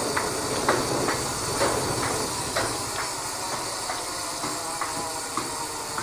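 Steady wind rushing over the microphone, with scattered light clicks and knocks about every half second to second.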